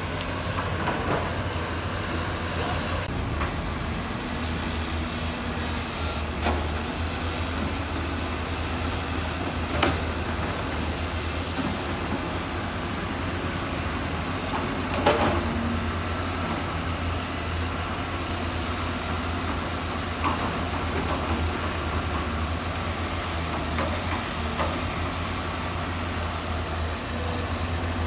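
Heavy diesel construction machinery running steadily with a low engine hum, with a few sharp metallic knocks and clanks, the loudest about halfway through.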